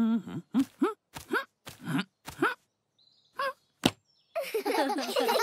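A cartoon dog's short wordless vocal noises, grunts and gliding hums, in quick succession. A sharp click comes just before four seconds in, then a busy chattering sound near the end.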